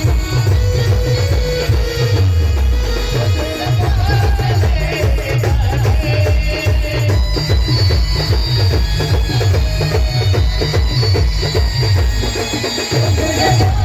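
Loud band music driven by a fast, steady bass-drum beat of about four strokes a second, with a wavering melody line over it.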